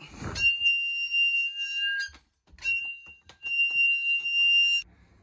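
A seized track bar end squealing as it is twisted free with a long pry bar after heating: metal grinding on metal in three high-pitched squeals, a long one, a short one and another long one, with a few clicks between.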